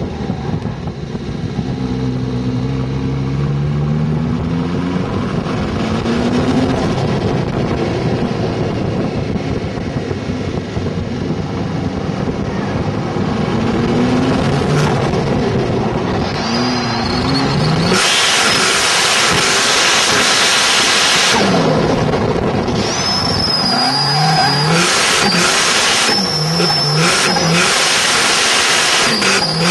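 Turbocharged 430 PS Opel Ascona engine heard from on board, revving up and down in repeated rises and falls of pitch. From about two-thirds of the way in, loud tyre squeal and hiss join it as the car drifts, with a thin high-pitched squeal in the last few seconds.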